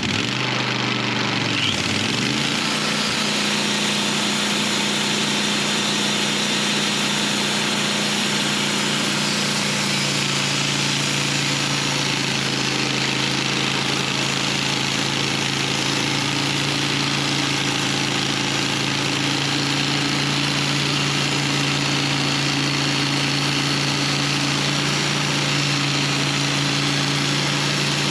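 Portable sawmill's engine running steadily; its pitch dips briefly and recovers about two seconds in, then it holds a constant drone.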